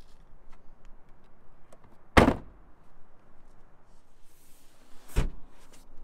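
Two solid car-body thunks about three seconds apart, the first the louder: a 2019 Honda Clarity's trunk lid being shut, then a rear door unlatching and swinging open, with a few small clicks after it.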